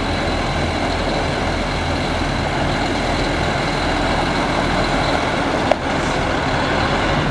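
Cummins M11 inline-six diesel of a Sterling A9500 mixer truck idling steadily, with one sharp click near the end.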